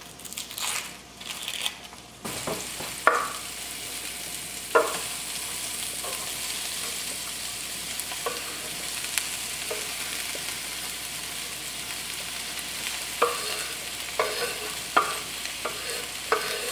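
Dry onion skin crackling as an onion is peeled by hand; about two seconds in, sliced bell peppers start sizzling in melted lard in a skillet, a steady frying hiss. Over it come scattered knocks and scrapes as diced onion is pushed off a wooden cutting board with a knife and drops into the hot pan, more of them near the end.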